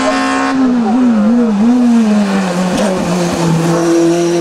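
Open-wheel single-seater race car's engine under load. Its pitch dips and jumps back a few times as it brakes and shifts down for the bend, falls low about three seconds in, then climbs slowly as the car accelerates out.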